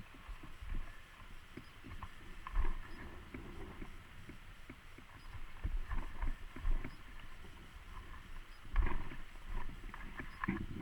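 Mountain bike rattling and thumping over a rough dirt singletrack: irregular knocks and clatter, with heavier jolts about two and a half seconds in, near the middle and a little before the end.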